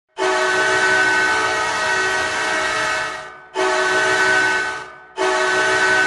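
Ice hockey goal horn: a loud chord of several steady tones, like a train horn, sounding in three blasts. The first lasts about three seconds, the second is shorter, and the third starts just after five seconds in.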